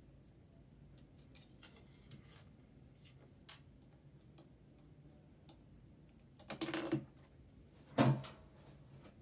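Hands working on a sewing machine being serviced: scattered small clicks and ticks of parts and tools being handled, then a short clatter about six and a half seconds in and a louder single knock about a second later.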